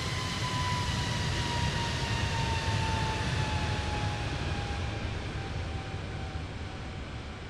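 Jet airliner's engines at takeoff power, passing close and moving away: a low rumble under a whine that falls slowly in pitch, loudest a couple of seconds in and fading toward the end.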